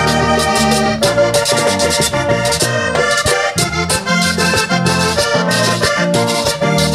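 Live vallenato band playing an instrumental passage: a button accordion leads over electric bass, a caja hand drum and the rhythmic scraping of a metal guacharaca.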